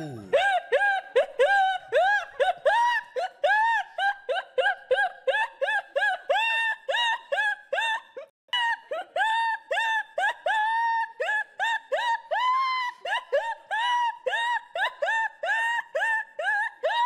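A high-pitched, squeaky 'windshield-wiper' laugh: rapid wheezing squeaks, about three or four a second, each rising and falling in pitch, kept up with only a brief break about halfway through.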